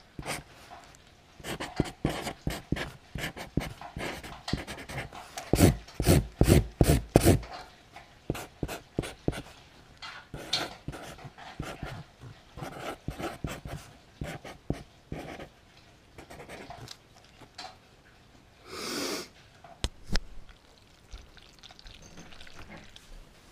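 Felt-tip marker writing on a cardboard shipping box: quick scratchy strokes in runs, heaviest and loudest about six to seven seconds in. A single short louder rustle comes about nineteen seconds in.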